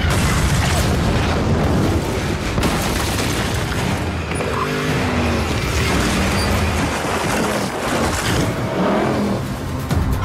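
Action-film sound mix of explosions and flying debris layered with car engines and background music.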